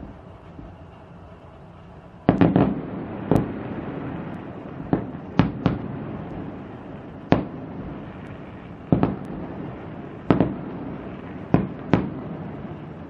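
Aerial firework shells bursting, heard from a distance: after about two seconds of low rumble, roughly a dozen sharp bangs, some in quick pairs or triplets, each trailing off in a rolling echo.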